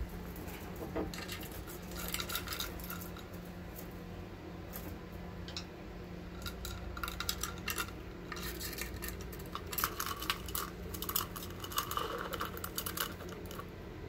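A budgerigar moving in and out of a wooden nest box makes a run of small sharp clicks and scrapes, busiest in the second half, over a faint steady hum.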